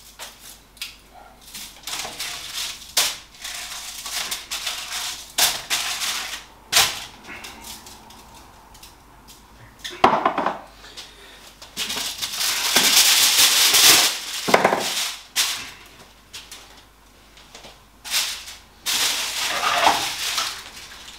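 Clinks, knocks and rattles of a metal oven tray and seasoning containers being handled while chicken breasts are seasoned, with a longer scratchy stretch about twelve seconds in.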